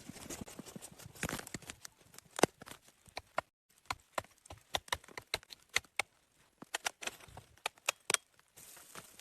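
A series of irregular sharp knocks and cracks, a few to several a second, with a short rush of hiss in the first second or so and again near the end.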